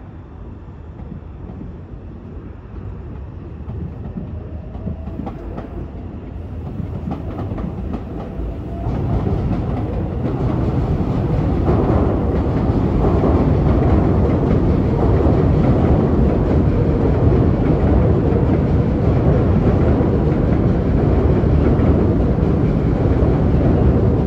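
Meitetsu 2000 series μSKY electric train running past on the rails. It grows steadily louder over the first half, then holds steady.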